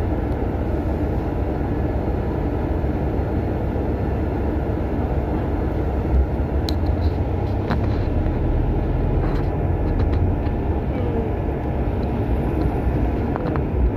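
Bus in motion heard from on board: a steady low engine and road rumble with a few light rattles and clicks.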